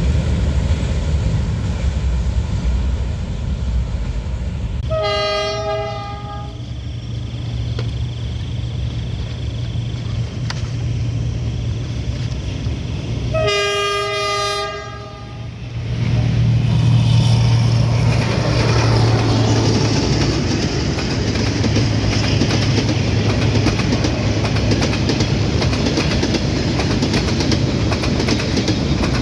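Train horn sounding two blasts about eight seconds apart, the second longer, over the steady low rumble of the train. Shortly after the second blast the rumble grows louder as the train comes through.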